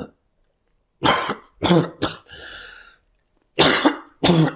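A man coughing: three coughs close together, then after a pause two more.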